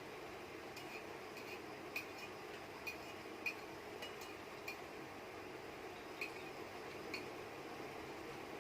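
Faint, irregular sharp clicks or ticks, about seven of them spaced unevenly, over a steady low background hiss.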